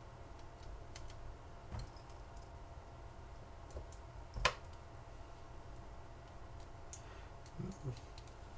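Small plastic clicks and taps from handling an LG Xenon phone as its SD card is put in, with one sharper click about halfway and a couple of soft knocks near the end.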